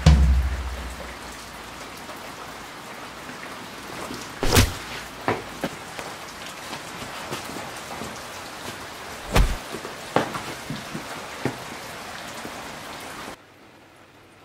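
Steady rain falling, with scattered sharp knocks and drips through it and a heavy low thud at the start. The rain noise drops off suddenly near the end.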